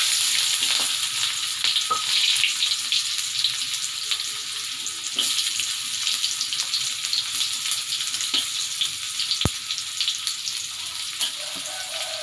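Chopped shallots and garlic sizzling in hot oil in a wok: a steady hiss with scattered crackles, and one sharp click late on.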